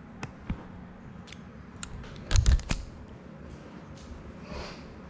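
Clicks and knocks from a small FPV drone being handled and set down on a hard tabletop, with a cluster of loud knocks about two and a half seconds in, over a steady low hum.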